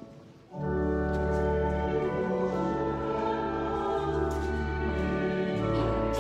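Church choral music with organ accompaniment: after a brief lull, sustained chords with deep bass notes start about half a second in and carry on steadily.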